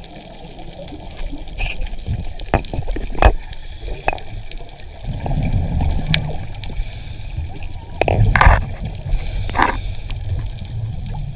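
Underwater sound recorded by a scuba diver's camera: a low gurgling rush of bubbles that swells twice, with short patches of hiss and scattered sharp clicks and knocks.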